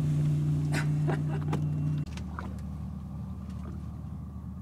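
A boat's engine drones steadily, then drops suddenly about two seconds in to a quieter, lower hum.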